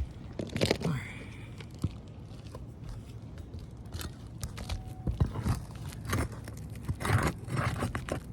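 A pry bar scraping and crunching under asphalt architectural shingles as they are worked loose to reach the nails, in irregular strokes with scattered knocks.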